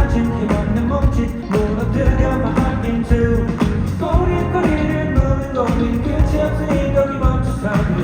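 Loud pop-rock music with drums keeping a steady beat and melody over it: a song played live at a sound check.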